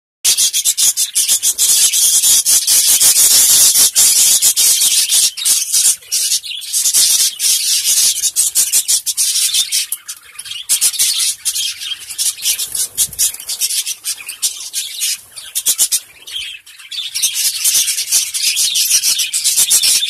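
A flock of budgerigars chattering and chirping, a dense high-pitched twitter with many quick overlapping notes.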